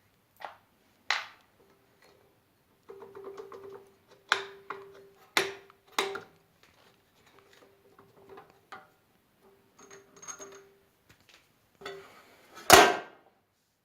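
Metal parts being handled and knocked together: a series of irregular clinks and knocks, several leaving a short metallic ring, with one loudest clunk near the end.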